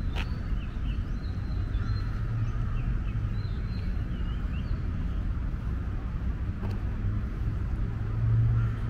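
Steady low rumble of distant city traffic, with small birds chirping in short calls during the first half and a few faint clicks.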